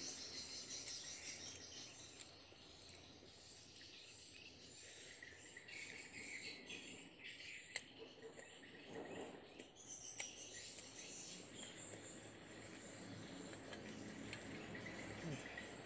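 Insects chirping steadily in the background, a faint high-pitched drone, with soft chewing and a single sharp click about eight seconds in.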